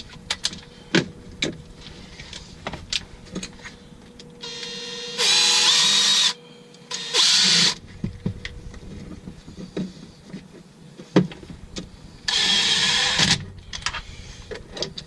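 A handheld electric power tool runs in three short bursts: the first, about four seconds in, winds up in pitch, a brief second one follows, and a third comes near the end. Between the bursts there are scattered clicks and knocks of tools being handled.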